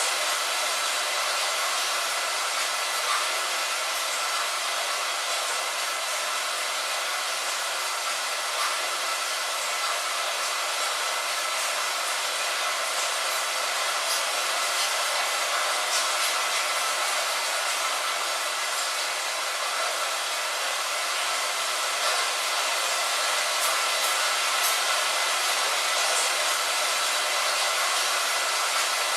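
Steady hiss of light rain, with an occasional faint tap of a single drop.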